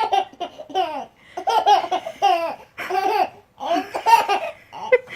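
High-pitched laughter in about eight short, repeated bursts, each falling in pitch.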